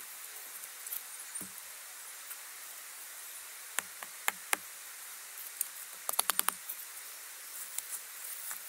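Rocks being worked and knocked into the earth with the hands and a small digging tool: scattered sharp knocks about four seconds in, then a quick run of five or six clacks around six seconds, over a faint steady hiss.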